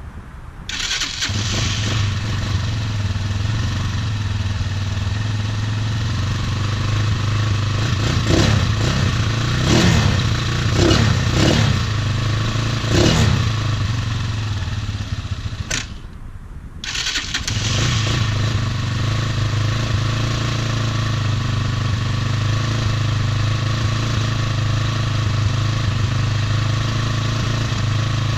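Tornado 250cc Chinese quad's engine starting up and running, given about five quick throttle blips that rise and fall, cutting out for about a second, then running again at a steady idle. The quad is hard to start and idles unevenly, which the owner thinks might be the carburetor or the spark plug.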